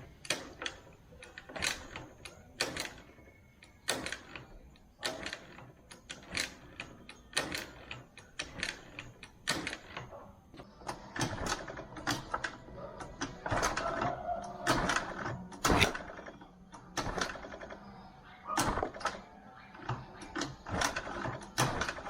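Irregular sharp clicks and knocks, roughly one or two a second, of hands working on a small scooter's parts, with a busier clattering stretch about halfway through. The scooter's engine is not running: it has just failed to start.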